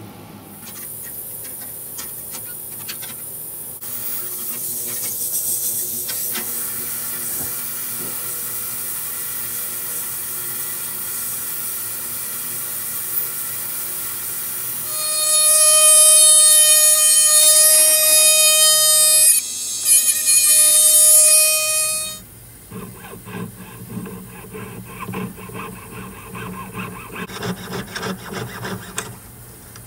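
A hiss for about ten seconds, then a loud steady whine that drops out briefly and stops. Near the end comes a run of rapid back-and-forth strokes of a jeweler's saw cutting a cast ring off its sprue on the bench pin.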